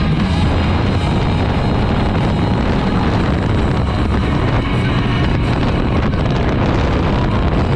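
Motorcycle engine running at cruising speed with loud wind rushing over the microphone, a steady low rumble under the wind noise.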